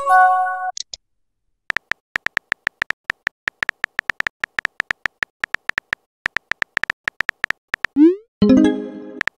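Texting-app sound effects. A short chime, then about six seconds of rapid keyboard-tap clicks as a message is typed. Near the end a quick rising swoosh and another chime as the message is sent.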